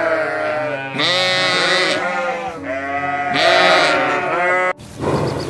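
Sheep bleating: three long, quavering bleats one after another, broken off near the end by a sudden cut to a rougher, noisier sound.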